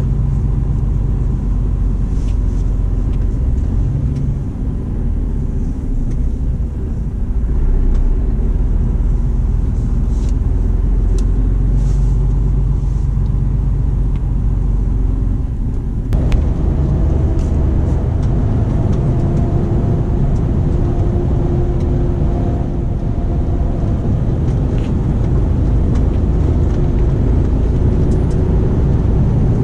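Inside a Mercedes-Benz truck cab at motorway speed: the engine drones steadily under tyre and road noise. About halfway through the sound changes abruptly, and after that a steady whine sits over the drone.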